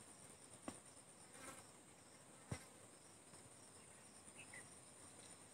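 Near silence with a faint, steady high-pitched whine, broken by two soft clicks, one under a second in and one about two and a half seconds in: a computer mouse clicking a link.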